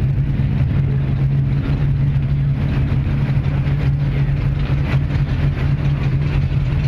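Vehicle engine idling: a steady low rumble that holds an even pitch, with no revving.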